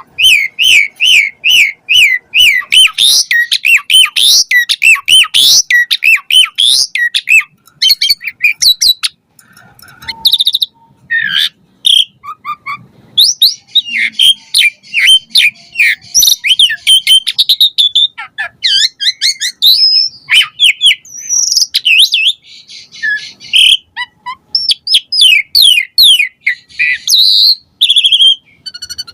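Asian pied starling (jalak suren) singing a fast, varied song of chirps and whistles. It opens with a quick run of repeated notes, pauses briefly about nine seconds in, then goes on in mixed phrases.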